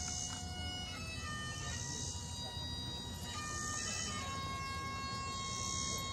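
Bagpipes playing a slow tune of long held notes, with a high hiss swelling and fading about every two seconds.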